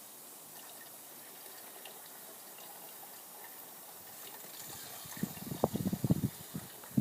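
Steam injector feeding water into a small vertical fire-tube boiler: a faint steady hiss, then irregular gushing and sputtering from about five seconds in, as the injector struggles to pick up.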